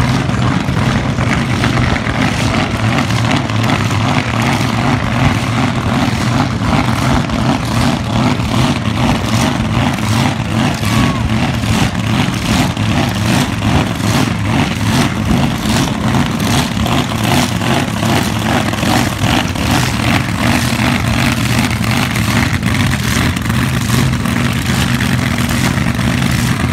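Drag racing car's engine idling loudly with a lumpy, evenly pulsing beat, holding steady without a full-throttle launch.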